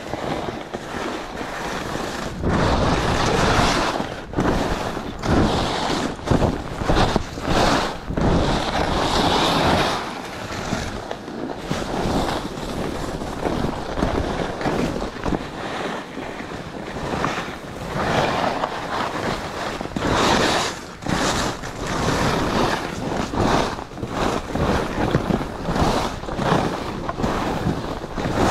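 Skis sliding and turning through snow, a rushing hiss that swells and eases with each turn, mixed with wind buffeting the helmet-mounted microphone.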